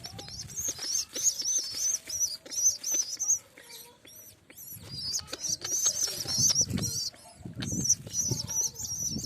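Young pigeon (squab) peeping rapidly and insistently in high, squeaky calls, several a second, with a short break about four seconds in: the begging calls of a squab at feeding. Wings flutter and rustle along with the calls.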